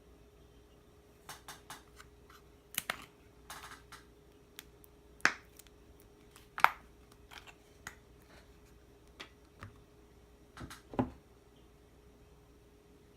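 Kitchen handling sounds: a scattered series of light clicks and knocks, the three loudest about five, six and a half, and eleven seconds in, over a faint steady hum.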